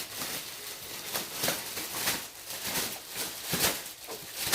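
Plastic packaging on an Easter basket crinkling and rustling as it is handled and pulled at, in a run of irregular crackles a few times a second.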